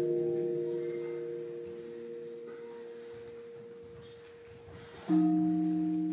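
Slow music of held, ringing notes: a chord fades away slowly, then a new chord is struck about five seconds in and rings on.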